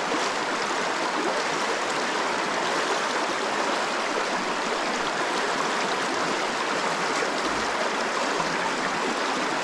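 Steady rush of trout-stream water running.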